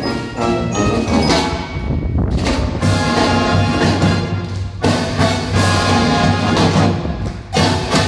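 Marching band playing, with brass melody lines and drum hits. A steady low rumble from strong wind buffeting the microphone runs underneath.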